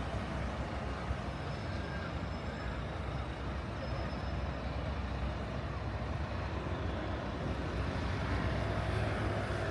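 Steady city street ambience: road traffic rumbling, with a heavier vehicle growing a little louder about nine seconds in.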